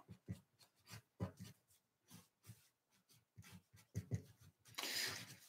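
Faint ink pen strokes on paper: light scratching and small taps of the pen tip, with a brief louder rustle near the end.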